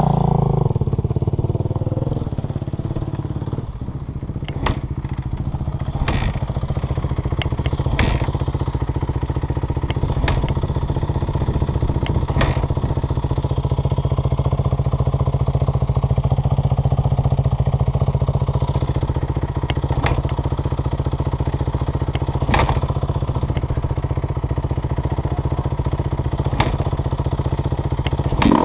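Kawasaki KX450F's single-cylinder four-stroke engine idling steadily. Its revs drop back to idle in the first couple of seconds and it is blipped again at the very end, with occasional sharp clicks between.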